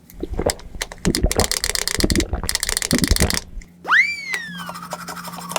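A quick run of clicking and rattling, like small hard objects being handled, lasting about three and a half seconds. Then a whistle-like sound effect rises sharply and slides back down, followed by a steady buzzing tone.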